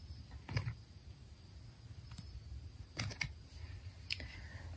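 Faint clicks and soft taps of tarot card decks being picked up and moved aside, a handful of separate clicks over a low steady hum.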